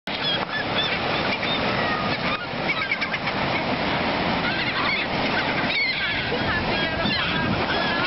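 A flock of gulls calling over one another with many short, overlapping squawks, over the steady noise of breaking surf.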